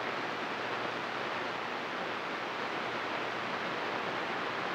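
CB radio receiver static: a steady hiss from the speaker with no station coming through on the channel.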